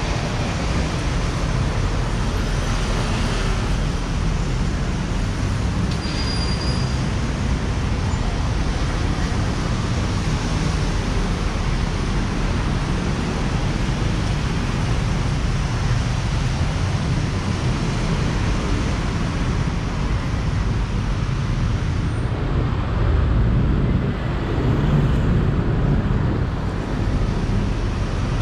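Steady city road traffic: engines and tyres running past in a continuous low rumble. It swells louder for a few seconds about three quarters of the way through as a vehicle passes close by.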